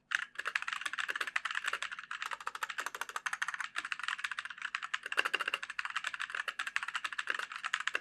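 Fast, continuous typing on a META61 mechanical keyboard with B-Sun brown switches and hard ABS keycaps: a dense clatter of keystrokes, quite noisy for tactile brown switches. The reviewer puts the noise down to the low-quality ABS keycaps and the switches.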